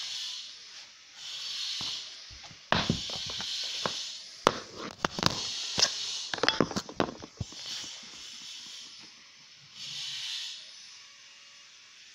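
Handling noise from a phone being moved about: a cluster of sharp clicks and knocks through the middle, between soft hissing swells that come every couple of seconds.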